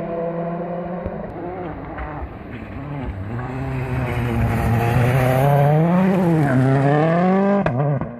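Rally car engine passing at speed on a forest stage, its revs rising and falling again and again through gear changes and lifts. It grows louder to a peak about five to seven seconds in, then drops sharply near the end as the car moves away.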